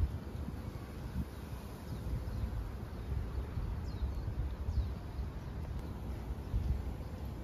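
Garden ambience: a steady low rumble with a few short, faint bird chirps, two of them about four seconds in.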